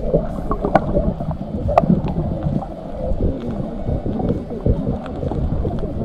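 Muffled underwater sound of water moving and bubbling around a swimming snorkeler, heard through a submerged camera, with scattered sharp clicks.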